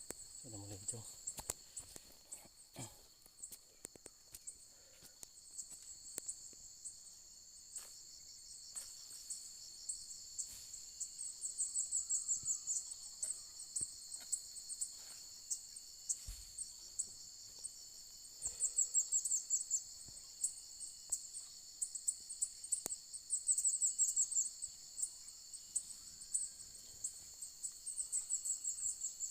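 Insects calling: a steady, high-pitched drone with a louder, pulsing high trill breaking in about every five seconds. Faint scattered clicks sound through it.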